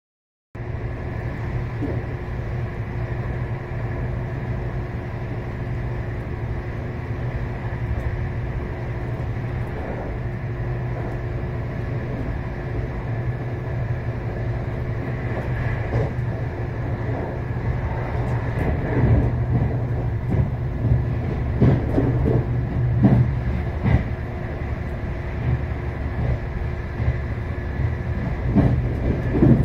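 Cabin of a Meitetsu 1200 series Panorama Super train running at speed: a steady rumble of the running gear with a constant hum. In the second half the wheels clatter more and more often over rail joints and points as the train runs through a station.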